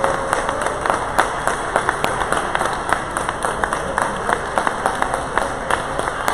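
Spectators applauding, a steady patter of many irregular hand claps.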